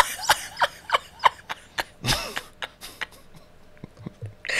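A woman laughing in short, breathy, stifled bursts. The bursts thin out toward the end.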